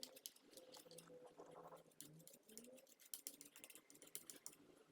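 Faint scratchy clicks of toothbrush bristles brushing dust off a laptop fan's exhaust vent, in quick irregular strokes.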